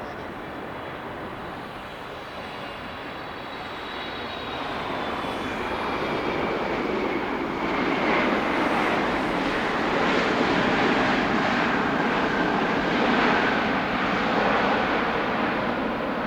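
Jet airliner's engines passing close by: a broad rush that swells over several seconds and stays loud, with a thin high whine sliding downward in the first few seconds.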